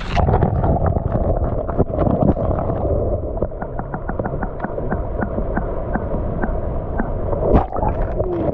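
Muffled underwater sound from an action camera dipped through an ice-fishing hole. The sound goes dull almost at once as the camera goes under, leaving a low watery rumble with a series of small clicks and knocks.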